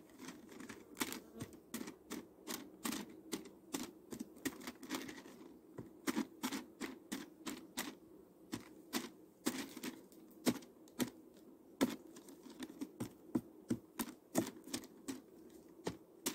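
A hive tool poking small holes through a sheet of newspaper laid on a polystyrene Mini Plus nucleus hive, irregular sharp taps about two or three a second, over the steady hum of bees. The holes let the bees breathe while the paper separates two colonies being united by the newspaper method.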